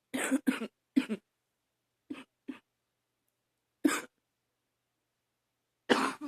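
A woman coughing, which she puts down to allergies. Several short coughs come close together in the first second or so, then two quick ones, then single coughs a couple of seconds apart.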